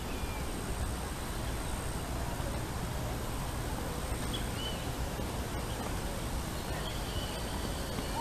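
Steady outdoor ambience by a lake: a low rumble and hiss throughout, with a few faint, short bird chirps about four seconds in and again near the end.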